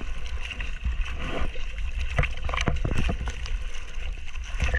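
Sea water washing over a surfboard and splashing against a board-mounted camera, with repeated sharp splashes over a heavy rumble of water buffeting the microphone.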